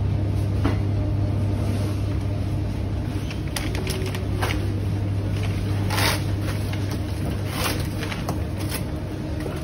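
Supermarket ambience: a steady low electrical hum from the refrigerated display cases and chest freezers, with a few short clacks and knocks scattered through.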